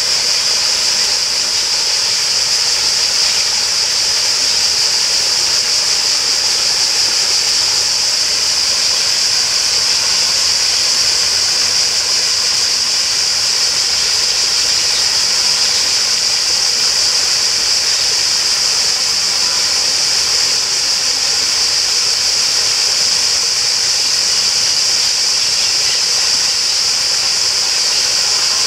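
Steady rush of flowing water, with a continuous high-pitched buzzing hiss over it.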